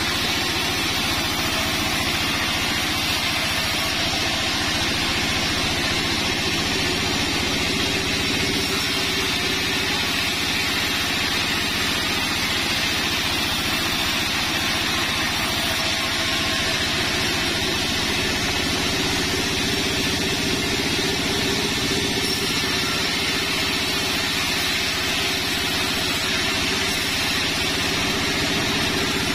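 A sawmill band saw runs steadily at a constant pitch while its very sharp blade rips a sengon log lengthwise.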